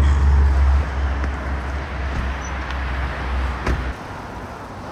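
City street traffic noise with a heavy low rumble, broken by a short knock just before four seconds in, after which only quieter street noise remains.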